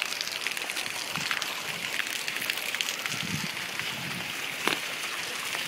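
Water from a plaza's ground-level fountain jets spraying and splashing onto wet paving tiles: a steady patter, with a sharper tap about three-quarters of the way through.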